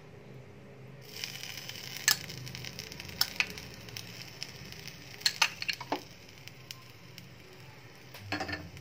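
Buttered bread slices sizzling softly in a nonstick frying pan, the sizzle starting about a second in, with a few sharp clinks of a metal spoon against the bowl and pan as shredded chicken is spooned on.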